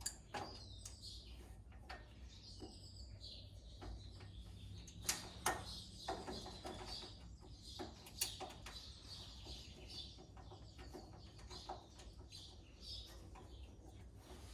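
Faint birds chirping in the background, with a few sharp clicks and knocks; the loudest come about five seconds and eight seconds in.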